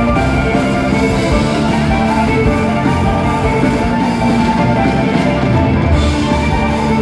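Live violin with a symphony orchestra and a rock band, drum kit and guitar included, playing loud through the hall's sound system.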